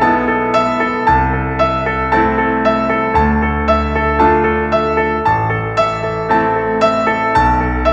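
Instrumental background music led by piano, with notes struck about twice a second over a low bass that changes every two seconds or so.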